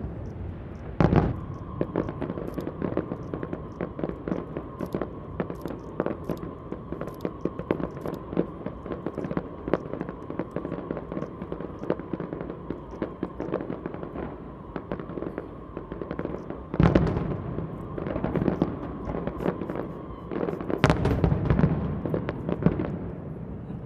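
Fireworks going off: a dense run of sharp crackling pops, with heavier booming bursts about a second in, around seventeen seconds in and again near twenty-one seconds.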